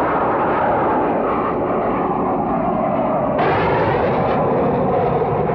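Hawker Siddeley Nimrod's Rolls-Royce Spey turbofans in a low pass over the sea: a loud, steady jet rush that starts suddenly and turns brighter and hissier about three and a half seconds in.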